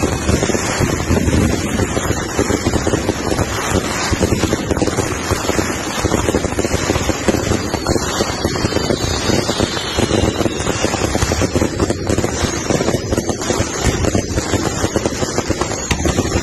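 Consumer aerial fireworks going off in a continuous barrage: a dense run of bangs and crackling bursts without a break.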